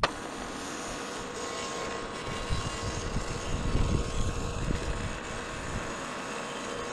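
Portable bandsaw sawmill (Norwood LumberLite ML26) running with its blade cutting through an ash log. A steady engine-and-blade drone that grows louder and rougher for a couple of seconds in the middle of the cut.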